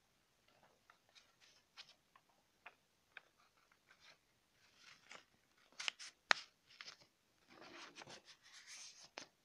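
A sheet of spiral-notebook paper handled close up: scattered soft crinkles and clicks, a few sharp crackles about six seconds in, and rustling near the end as it is rolled and folded.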